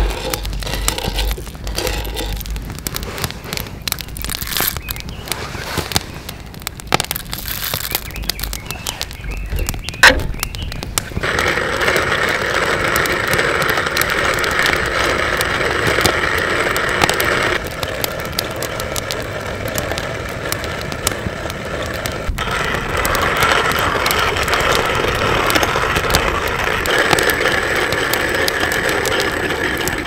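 Kalita wooden-box hand coffee mill being cranked, its burrs crunching roasted coffee beans in a dense, crackling rattle. About eleven seconds in, the grinding turns louder and steadier.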